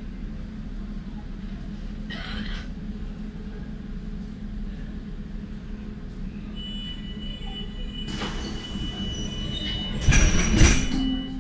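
Inside a Nuremberg DT1 U-Bahn car standing at a station: a steady low hum from the train, with a short hiss about two seconds in. From about six seconds a high steady tone sounds, then a rush of noise builds and a cluster of loud knocks comes near the end.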